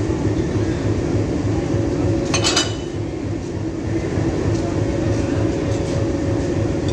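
Diesel locomotive engine idling with a steady throb. About two and a half seconds in, a short metallic clink from the coupling gear being handled.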